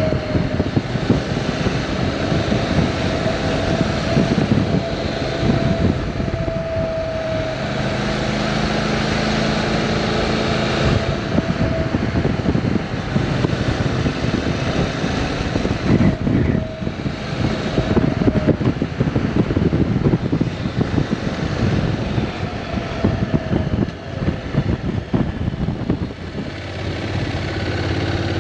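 Honda NC750X's parallel-twin engine running as the motorcycle rides along, its note shifting through the bends, with heavy wind noise buffeting the microphone.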